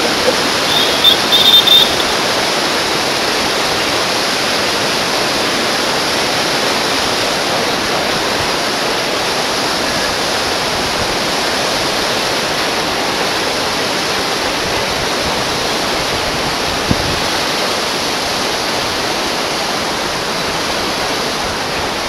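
Steady rush of a fast mountain river flowing below the bridge, even throughout. A few short high-pitched sounds come about a second in, and a single sharp knock about seventeen seconds in.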